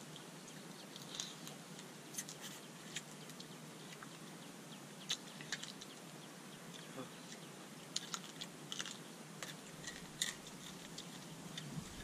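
People chewing and smacking their lips while eating seafood papaya salad by hand: scattered short, irregular wet clicks over a faint steady hiss.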